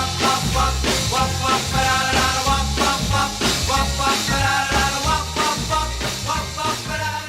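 Background rock-and-roll music: an instrumental passage of the song with a steady beat and held melody lines, and no singing.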